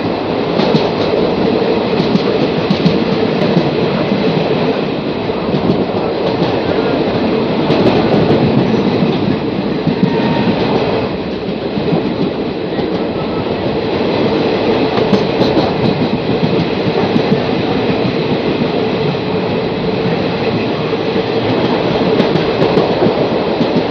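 Express train coaches running at speed, heard from an open doorway: loud, steady wheel-on-rail running noise with a steady hum.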